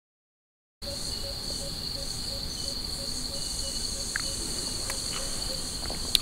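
Insects shrilling in a steady high-pitched chorus, starting suddenly after a moment of dead silence, with a fainter lower note pulsing about three times a second and a single click near the end.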